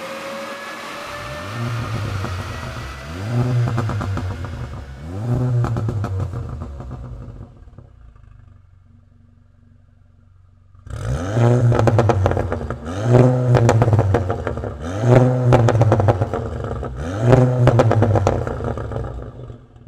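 Volkswagen Golf GTI's tuned turbocharged four-cylinder engine revved in place through an ARMYTRIX valvetronic exhaust: three rising blips that fade out, a quiet idle, then about eleven seconds in a much louder idle and four sharp revs with crackling as the revs drop.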